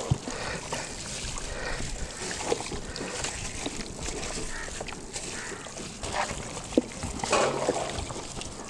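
Wet squelching and slapping of chicken and mutton pieces being hand-mixed through a thick yogurt-and-spice marinade in a large metal pot, with a plastic glove rustling, in irregular uneven strokes.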